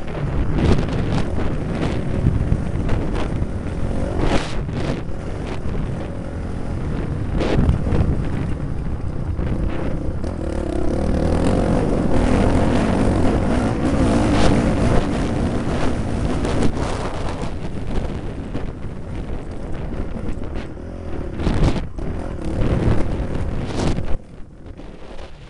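Dirt bike riding a rutted motocross track, its engine running under heavy wind buffeting on the microphone, with frequent knocks from bumps. The sound drops sharply about a second and a half before the end.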